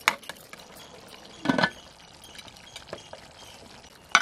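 Metal clinks and clatter of an aluminium pressure cooker being closed: a sharp click, a louder clatter with a short metallic ring about a second and a half in, faint ticks, and another sharp click near the end as the whistle weight is handled on the lid.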